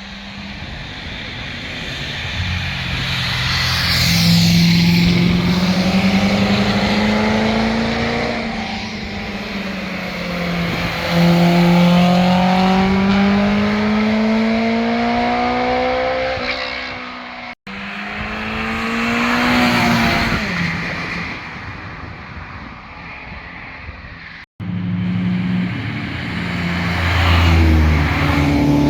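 Performance cars passing one after another, their engines revving and rising in pitch as they accelerate up through the gears; the sound cuts abruptly twice to a new car's pass.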